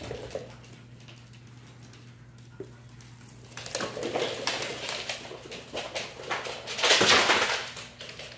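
Dogs playing on a hardwood floor: scuffling and claws clicking, busier from about halfway through, with the loudest burst about seven seconds in.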